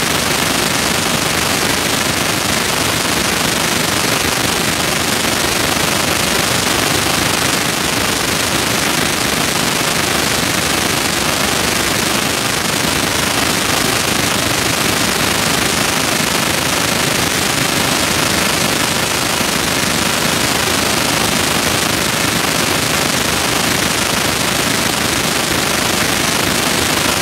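Loud, steady, unbroken noise of an indoor pool arena during a swimming race, with splashing and crowd noise smeared together by the hall's echo.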